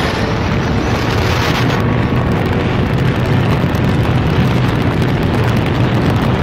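Heavy wind buffeting on the microphone of a bass boat running fast on plane, over a steady low rumble.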